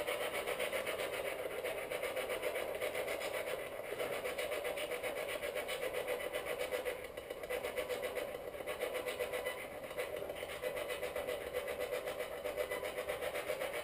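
Steady low static hiss with a fast, even flutter.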